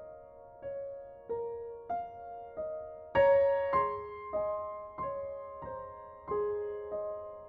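Gentle background piano music: single notes struck slowly, one about every half second or so, each fading away, with a louder chord about three seconds in.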